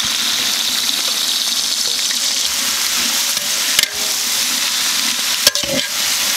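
Sliced onions sizzling in hot oil in a large metal pot, a steady frying hiss, as a slotted steel ladle stirs them; the ladle knocks against the pot twice in the second half.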